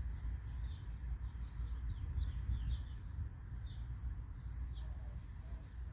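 A small bird chirping repeatedly in short, high, falling notes, about two a second, over a steady low rumble.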